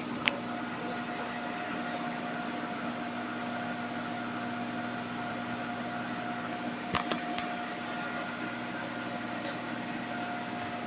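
Steady hum and hiss of room machinery, with a sharp click just after the start and two more close together about seven seconds in.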